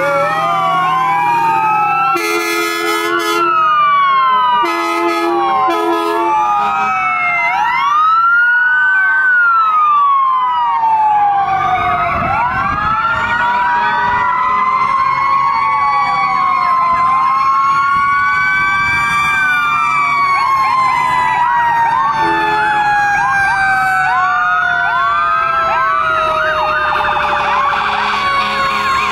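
Several fire-apparatus and emergency-vehicle sirens sounding at once, their wails and yelps sliding up and down over each other, with horn blasts in the first few seconds. Later a heavy rumble comes in, and one siren falls slowly in pitch over the last ten seconds.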